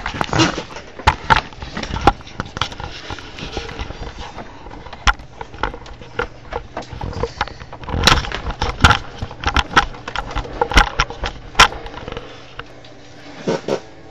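Playing cards handled on a table: irregular sharp snaps and taps, with short stretches of sliding and riffling as the deck is spread out.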